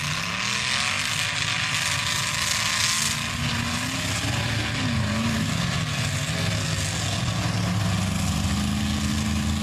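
Engine of a lifted 1940s Chevrolet mega truck running hard as it pushes through a deep mud bog, its note climbing in the first second and again near the end and then holding. A steady rushing noise from the big tires churning and flinging mud runs beneath it.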